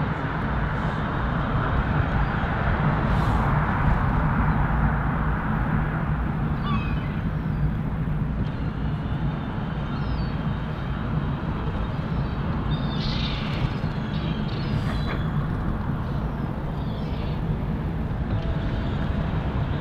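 Steady city traffic noise with a low rumble, and several short high bird calls scattered through the middle.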